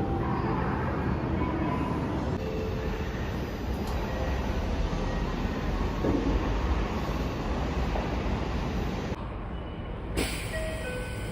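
Train in motion: a steady rumble of wheels on the rails, swelling a little about six seconds in. After an abrupt change about ten seconds in, a series of short electronic chime tones begins.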